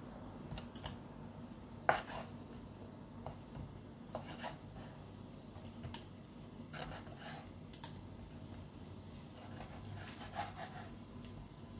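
Knife cutting fresh pork sausage into chunks on a wooden cutting board: scattered light knocks of the blade on the board, with some faint rubbing between them.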